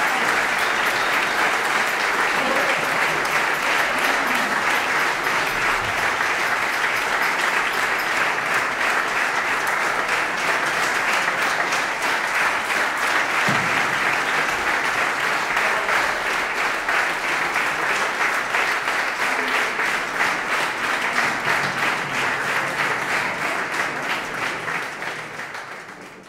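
Concert audience applauding, a dense steady clapping of many hands that fades out near the end.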